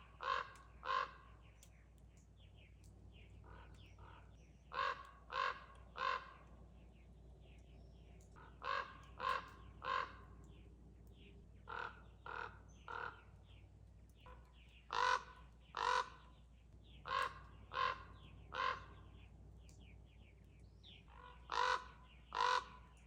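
A crow-type bird giving loud, harsh caws, mostly in sets of three short calls repeated every few seconds, with fainter high chirps from smaller birds between.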